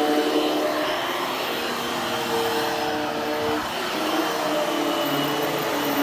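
Hushtone upright vacuum cleaner running on its low power setting, pushed over olefin carpet: a steady whir with a few humming tones that waver as it moves.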